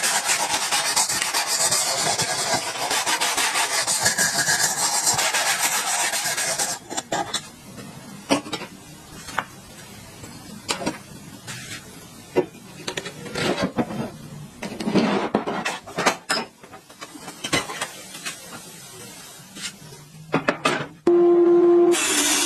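Continuous abrasive scraping on metal during restoration of an old water pump motor, lasting about seven seconds. It then stops and gives way to scattered light clicks and knocks of parts being handled. Near the end a steady hum begins.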